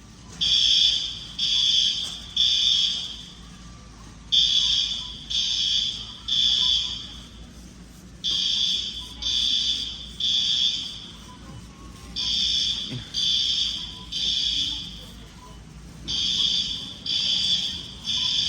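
Building fire alarm sounding the temporal-three evacuation signal: three high-pitched beeps of about half a second each, a pause, then three more, repeating about every four seconds.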